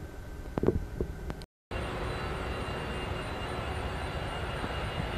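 Jet airliner engines idling as the plane taxis, a steady rush with a high, steady whine; the taxiing jet in view is an Airbus A320-family airliner. Before this, a few short knocks, with a brief dropout between them.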